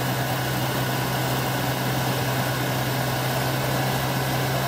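Newly rebuilt 327 Chevy small-block V8 running steadily during camshaft break-in, holding an even speed with no change in pitch.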